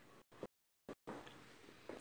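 Near silence: faint room tone with two brief, faint noises, cutting out to dead silence for about half a second near the middle.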